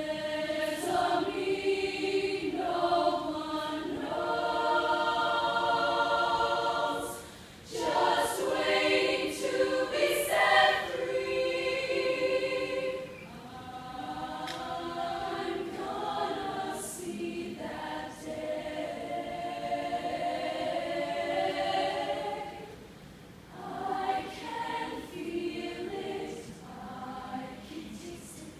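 A women's choir singing sustained chords in harmony, in long phrases broken by short pauses.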